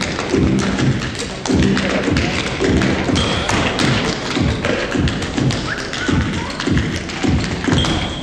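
Tap shoes of two dancers striking the stage floor in fast rhythmic runs of clicks and heavier heel thuds, over backing music with a repeating low line.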